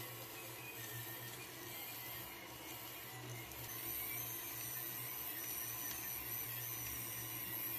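Small geared electric motor of a 1/10-scale RC crawler winch spooling out its line: a high, wavering whine starting about three and a half seconds in. Under it, the steady hum of a 3D printer running.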